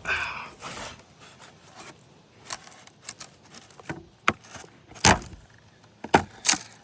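Prying a nail out from under a cedar roof shake: wood scraping, then a string of sharp cracks and knocks, the loudest about five seconds in, as the brittle, weathered shake splits.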